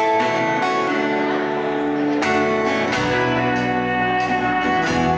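A live folk band playing a waltz: strummed acoustic guitar, fiddle and electric guitar, with low bass notes coming in about three seconds in.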